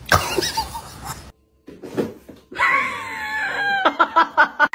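A high voice screaming, falling in pitch and breaking near the end into a quick string of short cries.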